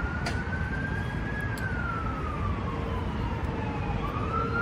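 An emergency vehicle's siren wailing: one tone slowly rises, falls over a couple of seconds, then rises again near the end, over a low steady rumble.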